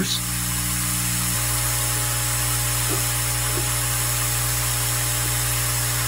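Hot air rework station's blower running steadily, giving a constant airy hiss over a low electrical hum; one of the hum's tones drops out about a second and a half in.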